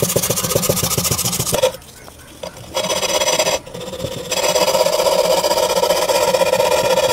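Sandpaper rubbed quickly back and forth along the cut edges of aquarium glass panels, a rapid rasping scrape, to take off the sharp edges. The rubbing stops briefly twice, then goes on more steadily.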